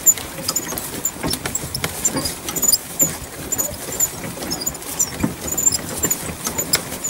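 A horse-drawn carriage on the move behind a trotting horse: short, high squeaks from the carriage and harness fittings repeat about twice a second, over a running clatter of small knocks and rattles.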